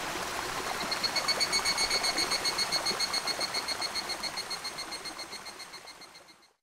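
Mountain stream rushing over rocks, joined about a second in by a high-pitched pulsing call of about six pulses a second; both fade out near the end.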